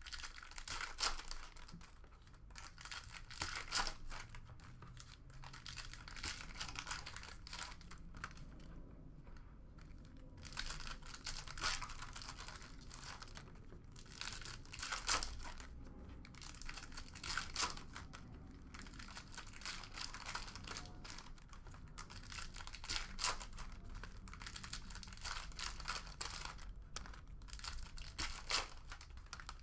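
Trading card pack wrappers being torn open and crinkled by hand, in irregular sharp rips and rustles.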